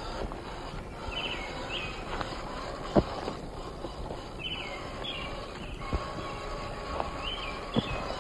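Scale RC rock crawler driving outdoors, its electric motor and gears giving a faint steady whine, with sharp knocks about 3 s and 8 s in as it bumps over rock. Repeated short high chirps sound over a steady outdoor noise.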